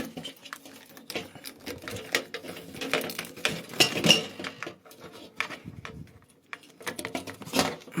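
Scattered light clicks, knocks and clattering of things being handled, at irregular intervals with no steady rhythm.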